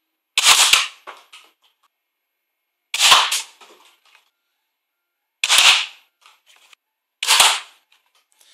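Nerf Roughcut pump-action dart blaster fired four times, about every two seconds: each shot a sharp puff and clack of the pump stroke, followed by a few light clicks. The blaster is fitted with a 3D printed ABS replacement gear and stretched springs, and it is firing properly.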